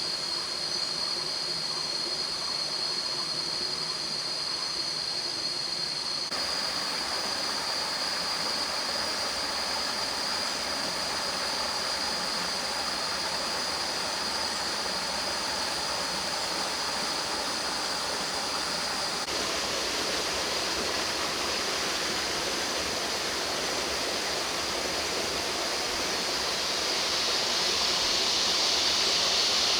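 Flowing water of a small forest stream, a steady rush, with a constant high-pitched insect drone over it. The water grows louder in the last few seconds.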